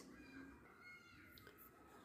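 Near silence: room tone, with a few faint, short, high tones.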